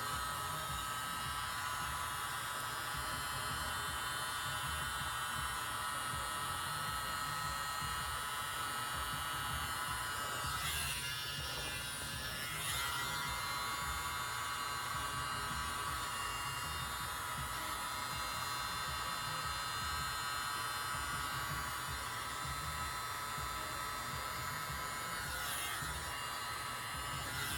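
Tiny battery-powered handheld blower running with a steady high motor whine, used to blow acrylic pour paint into flower and leaf shapes. Its pitch wavers briefly about a third of the way through and again near the end.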